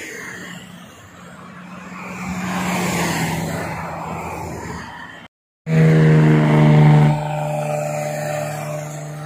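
Motorway traffic: cars passing by, swelling and fading during the first half. After a sudden brief dropout, a loud steady pitched tone with many overtones comes in, loudest for about a second and then holding at a lower level.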